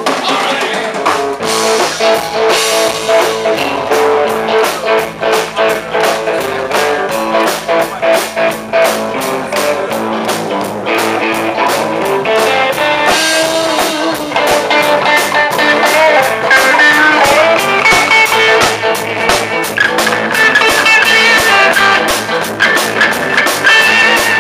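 Live rock band playing: electric guitars over a drum kit, a little louder from about halfway through.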